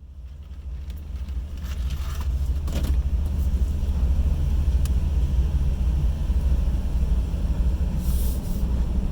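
Steady low engine rumble that fades in over the first few seconds, with a couple of brief hisses on top.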